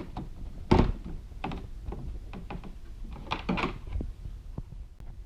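Plastic trim panel on a Honda Gold Wing GL1800 being pried off, its clips popping loose with a series of knocks and clicks. The strongest knock comes just under a second in, and two more come about three and a half seconds in.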